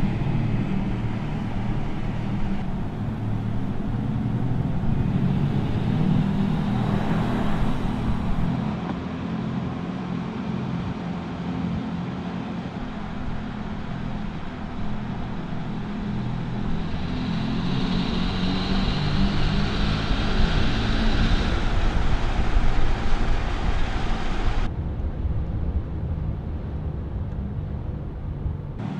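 Mercedes-AMG EQS 53 electric sedan driving: a steady low hum over road noise, with sudden changes where clips are cut together about 3, 8 and 25 seconds in, and louder for a stretch about two thirds of the way through.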